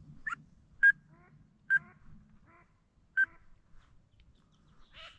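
Ducks quacking: four loud single quacks spaced about a second apart with fainter calls between them, then a quick run of shorter quacks near the end.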